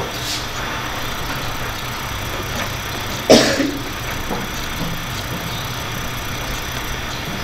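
Steady low hum and hiss, with a single cough a little over three seconds in.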